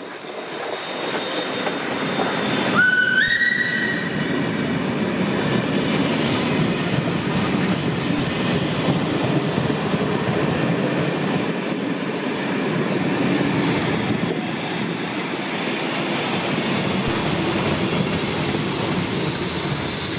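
Class 555.0 steam locomotive passing close by, followed by its passenger coaches rolling past with a steady rumble and clatter of wheels on rail, growing louder over the first two seconds. About three seconds in, a brief high whistle rises in pitch in two steps; near the end a thin, steady high squeal of wheels on rail begins.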